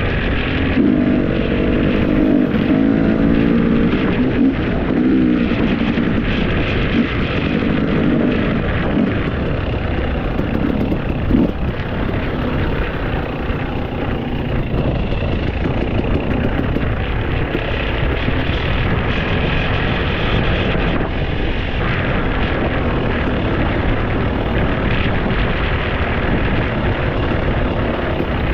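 A motor vehicle driving along: engine running with steady road and wind noise, with a wavering drone low down in the first several seconds.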